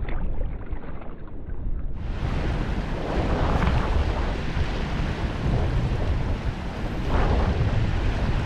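Wind buffeting the microphone in steady gusts, with the rush and lap of river water underneath.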